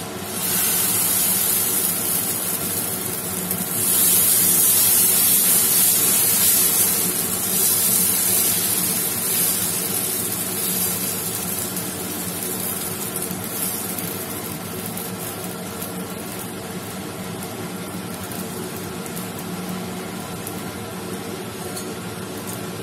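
Ragi dosa batter sizzling on a hot dosa griddle as it is ladled on and spread in circles. The hiss is loudest about four seconds in, then slowly dies down as the batter sets. A steady hum runs underneath.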